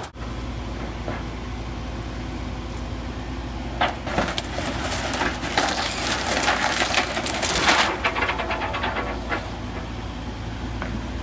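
Wood cracking, splintering and crunching as a mobile home is torn apart, thickest from about four to eight seconds in, over a steady low hum.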